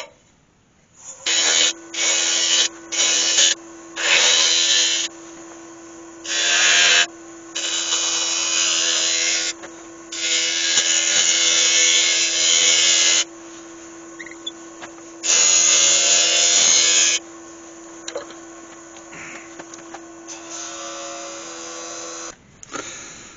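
A woodturning lathe starts about a second in and runs with a steady hum, while a turning tool cuts into the spinning oak to form a bead, in a series of loud shaving passes of up to three seconds each with lighter cuts between; the lathe stops just before the end.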